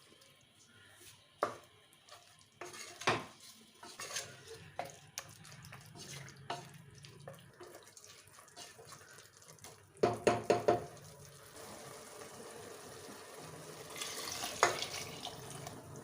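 Kitchen work: metal pots and utensils clinking, with a quick run of clatter about ten seconds in, then a tap running steadily through the last few seconds.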